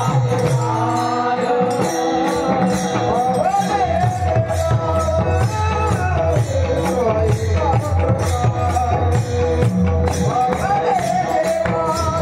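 A singer performing a Marathi devotional abhang in a melismatic style, over low accompanying notes and a steady, quick jingling beat.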